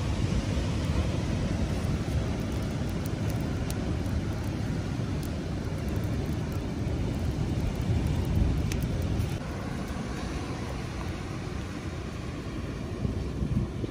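Wind buffeting the microphone: a steady low rumble that rises and falls, with a few faint clicks.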